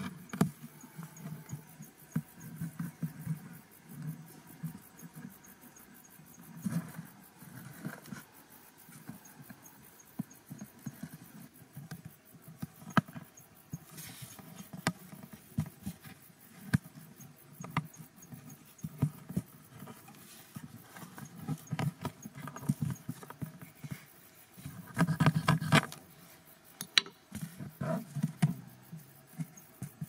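Close-up handling sounds of hands working cardboard and string: many small scattered clicks, taps and rustles, busiest about 25 seconds in.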